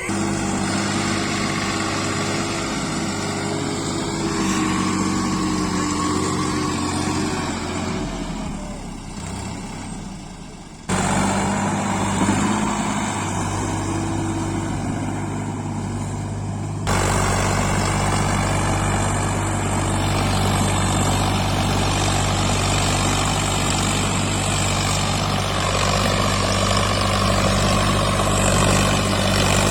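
Heavy diesel machinery engine running steadily. The sound changes abruptly twice, about 11 and 17 seconds in.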